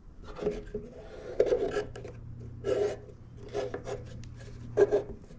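Polypropylene plastic strips scraping and rubbing as they are slid into place in a jig, in about six separate strokes, over a faint low steady hum.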